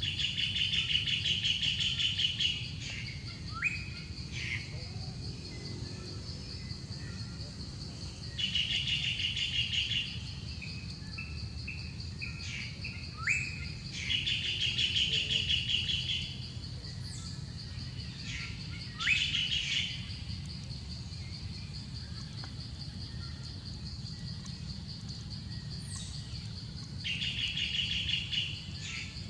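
Birds calling, with five trilled bursts of about two seconds each and short rising whistles between them, over a steady high insect drone.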